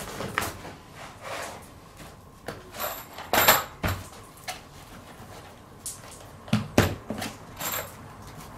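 Irregular knocks, bumps and scrapes of timber boards and corrugated plastic sheeting being handled on wooden floor joists, with the two loudest knocks about three and a half and seven seconds in.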